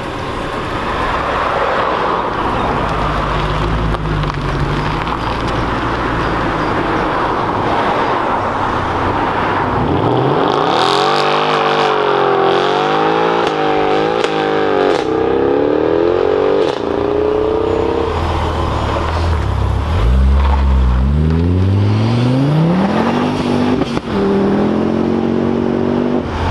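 Performance cars pulling away hard one after another: first a rumbling engine and road noise, then a Mercedes C-class saloon spinning its rear wheels in tyre smoke while its engine revs up and down several times. Near the end another car accelerates, its engine pitch climbing in steps through the gears.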